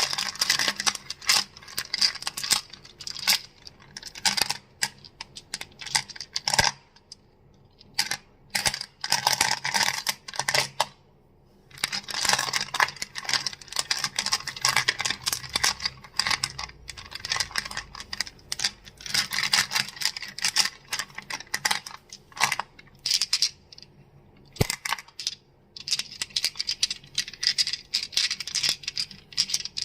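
Crystals clicking and clacking in dense, rapid runs of sharp clicks, with brief pauses about a quarter of the way in and again past three quarters.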